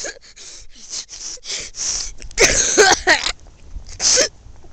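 A boy panting hard in quick gasps, out of breath, with two louder voiced gasps or cries, the first about two and a half seconds in and the second about four seconds in.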